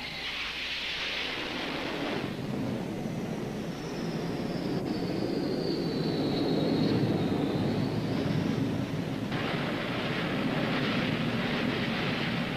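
Jet fighter engines running: a rushing roar with a thin high turbine whine that slowly falls in pitch, then rises again. The sound changes abruptly about two seconds in and again after about nine seconds.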